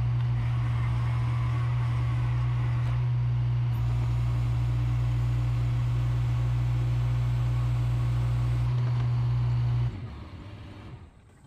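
Hi-Ranger bucket truck running steadily while its boom lowers a load, with a strong, even hum. The truck cuts off sharply just under ten seconds in, and the sound dies away within about a second.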